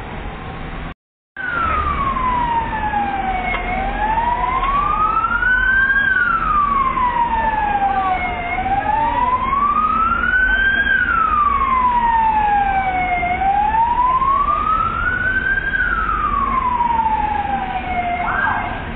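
Emergency vehicle siren wailing, sliding slowly up and down in pitch about once every five seconds, over a low engine rumble. The sound cuts out completely for a moment about a second in.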